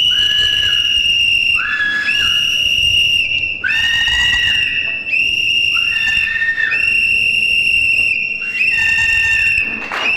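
A whistle blown in long, loud, piercing blasts, one after another with short breaks for breath. A second, lower tone joins in and drops out. It is protest noise meant to stop a lecture from going ahead.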